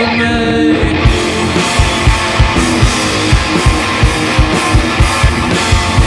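Live rock band with electric guitar and drum kit playing. Held notes ring out, and about a second in they give way to a steady drum beat.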